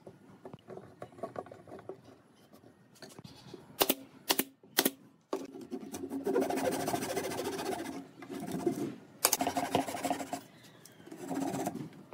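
A few sharp wooden knocks, then a thin-bladed flush-cut hand saw cutting through a round wooden rail in quick rhythmic strokes, in three bursts with short pauses.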